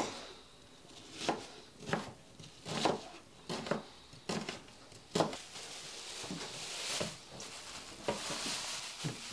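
Chef's knife chopping an onion on a plastic cutting board: about six separate strokes, roughly one a second. From about six seconds in, a plastic bag rustles as lamb mince is pulled out of it into a steel bowl.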